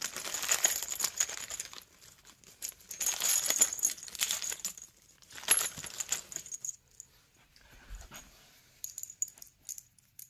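A hand rummaging in clear plastic bags of small metal flat-pack fittings: the bags crinkle and the steel screws and connector bolts clink and jingle together in three busy spells, then a few light clicks near the end.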